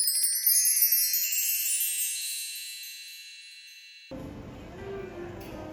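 Chime sound effect: a rapid cascade of high tinkling bell notes that rings and fades away over about four seconds, then cuts off abruptly. After it only a faint low background hum remains.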